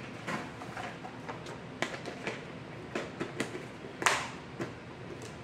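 Hands handling items and plastic packaging: a run of light knocks, clicks and crinkles, the sharpest knock about four seconds in.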